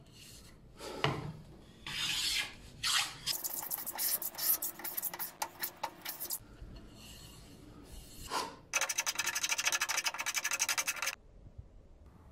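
A sanding block is rubbed back and forth by hand along the edge of a mahogany board, easing the edge. The strokes come in bursts and are fast and scratchy, with the longest, most even run near the end.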